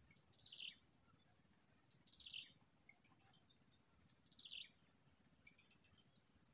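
Faint bird calls: a short call sliding downward in pitch, repeated three times about two seconds apart, over a steady high-pitched whine.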